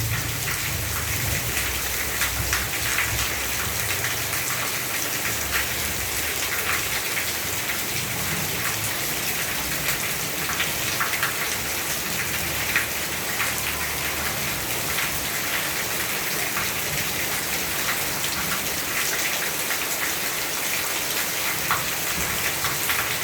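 Steady rain falling, with a dense hiss and many small drops ticking on surfaces.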